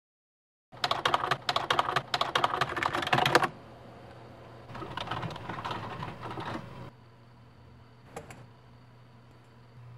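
Fast typing on a computer keyboard for about three seconds, then a softer stretch of typing, then a single mouse click near the end, over a low steady hum.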